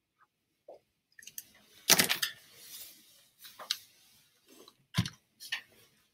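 Felt-tip pen and hand working on notebook paper: short scratches, clicks and rustles, loudest about two seconds in and again about five seconds in.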